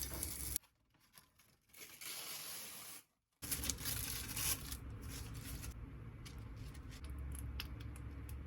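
Kitchen food-preparation sounds in several short clips, each cut off abruptly by a moment of silence: hissing and rustling handling noise, then a low hum with a few light clicks near the end.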